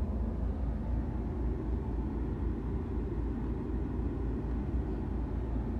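Steady low rumble inside the car's cabin from a Mahindra Scorpio's diesel engine idling.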